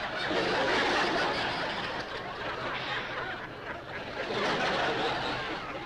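Audience laughing: a dense wash of crowd laughter, likely a studio audience or laugh track, that cuts off abruptly at the end.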